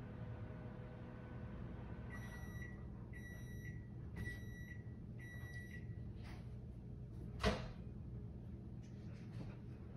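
Four electronic beeps from a household appliance, about one a second, each about half a second long and all on the same pitch, followed a couple of seconds later by a single sharp knock.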